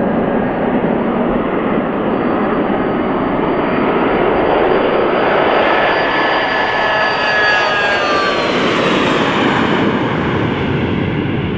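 Twin rear-mounted turbofan engines of a business jet at takeoff power during the takeoff roll and liftoff. The jet noise is loud and steady, with a whine that falls in pitch a little past halfway as the jet passes.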